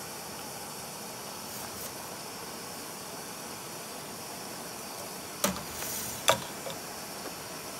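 MSR WindBurner canister stove's gas burner hissing steadily as it heats a pot of water toward the boil, with two sharp metal clanks about five and a half and six seconds in as a stainless steel mug and a pour-over coffee dripper are handled and set down.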